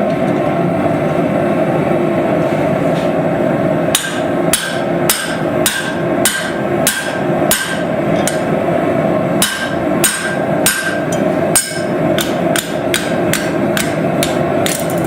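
Hand hammer striking hot steel on an anvil while forging a knife: about twenty ringing blows, roughly two a second, starting about four seconds in with a short pause midway. A steady rushing noise runs underneath.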